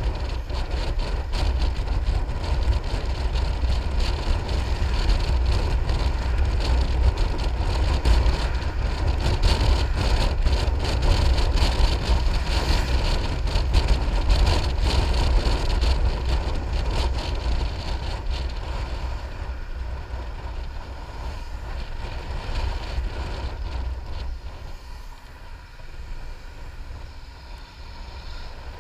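Piaggio MP3 500 scooter riding along, its running engine mixed with wind rushing and buffeting over the camera microphone. The sound gets quieter about two-thirds of the way through.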